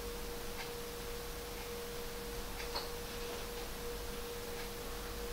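A faint, steady, single-pitched whine that holds one note throughout, over quiet room tone, with a couple of very soft clicks.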